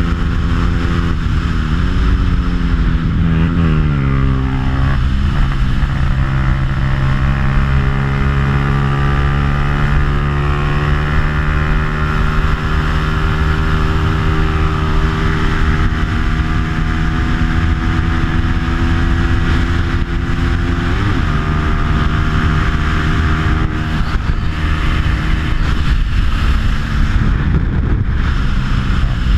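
Stock Bajaj Pulsar 200 single-cylinder four-stroke engine with an aftermarket exhaust, run hard at racing speed. Its pitch dips and rises several times in the first few seconds, then climbs slowly for about fifteen seconds as it pulls down a straight, with a brief flick about two-thirds of the way through. Heavy wind rumble on the microphone runs underneath.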